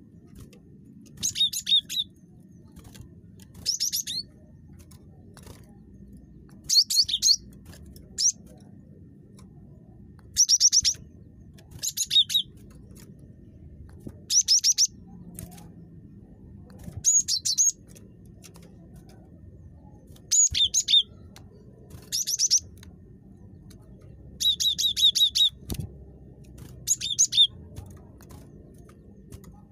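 Cinereous tit (gelatik batu) calling in short bursts of rapid, high, repeated notes, about one burst every two seconds. It is a very chatty bird, the kind used as a lure recording to get other gelatik batu to call.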